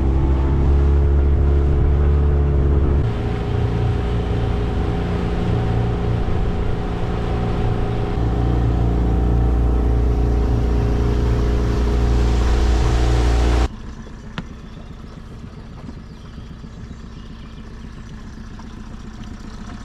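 Tohatsu 9.8 hp four-stroke outboard motor running under way, its note dropping about 3 seconds in and rising again about 8 seconds in. The engine sound stops abruptly about 14 seconds in, leaving quieter wind and water noise.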